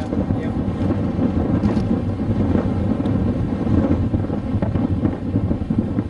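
Wind buffeting the microphone: a steady, loud low rumble.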